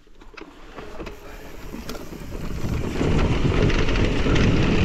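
Wind buffeting the microphone, a rushing rumble that builds and turns loud about three seconds in.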